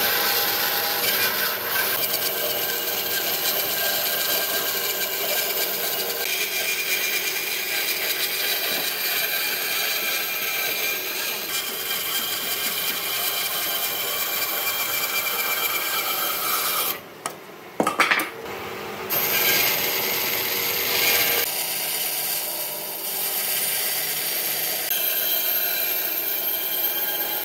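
A woodworking power tool working wood with a continuous rasping, grinding noise and a steady motor whine. It stops briefly about two-thirds of the way through, with a couple of sharp knocks, then starts again.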